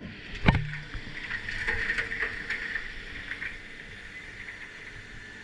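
Heavy machinery running, with a loud knock about half a second in and scattered clanks over a steady hum and high whine.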